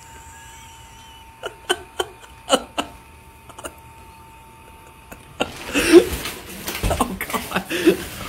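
Several short bursts of laughter over a faint steady hum. About five seconds in, a louder rustling, blowing noise starts, with more bursts of laughter or yelps in it.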